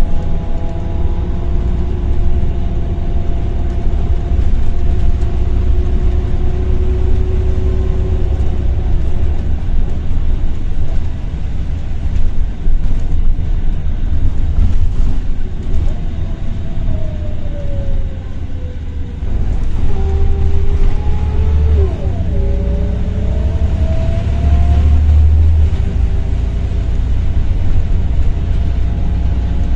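Interior of a Volvo B7RLE single-deck bus on the move: low engine and road rumble under a loud whine from the ZF automatic gearbox. The whine holds fairly steady at first, falls in pitch past the middle as the bus slows, then after a short drop in level rises again as it pulls away and picks up speed.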